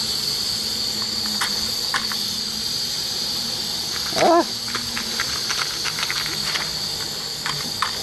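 Portable gas stove burner coming on with a sudden hiss, then hissing steadily at full flame. A few light clicks, and a brief squealing call about four seconds in.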